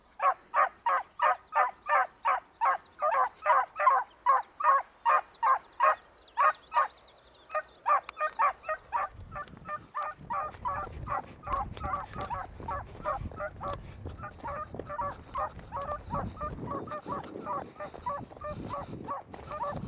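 Beagles baying on a rabbit's track, a fast run of loud, evenly spaced bays about three a second that breaks off briefly, then carries on fainter with a low rumbling noise underneath.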